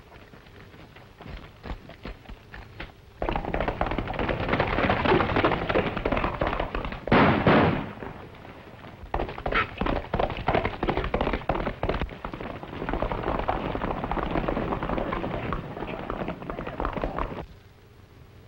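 Horse hooves galloping on a dirt track: a few faint hoof clops at first, then a fast, dense clatter of hoofbeats that stops shortly before the end. A single louder bang comes about seven seconds in.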